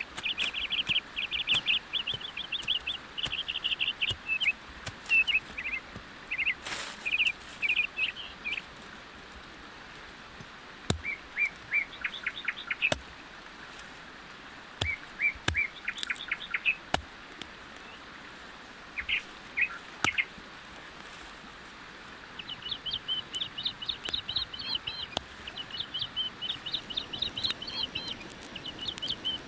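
Small birds chirping in quick trilled bursts, with gaps between them, then a steady run of rapid chirps over the last several seconds. A few sharp clicks sound now and then.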